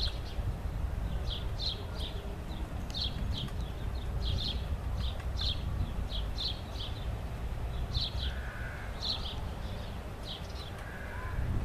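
Woodpecker pecking at a tree trunk to excavate a nest hole: short, sharp taps, often in pairs, about two a second and irregular, over a low wind rumble.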